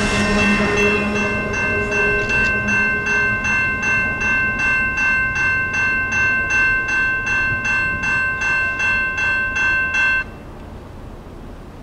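Railroad crossing signal bell ringing steadily at about three strokes a second, then cutting off suddenly near the end as the signal shuts off after the train has cleared. The rumble of the departing train fades out over the first few seconds.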